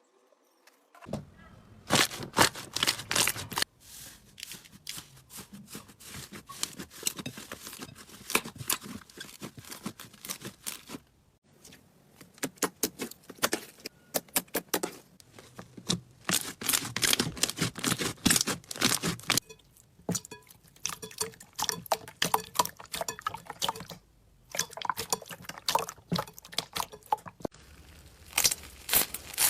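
Slime being squished and worked by hand, a dense run of sticky crackling and popping clicks in bursts, with several short pauses.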